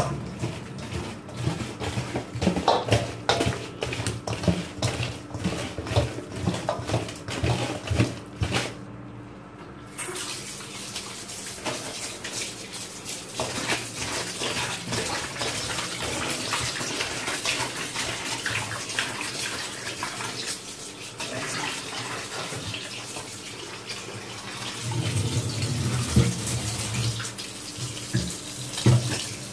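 Stinging catfish being rubbed and handled in a stainless steel bowl in a steel sink, with quick clattering and squelching knocks for the first eight seconds or so. From about ten seconds in, a kitchen tap runs in a steady stream onto the fish and bowl while hands splash and rinse them.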